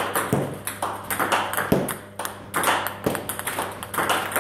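Table tennis rally: the ball knocking off the paddles and bouncing on the table in a quick, even run of sharp clicks, about two to three a second.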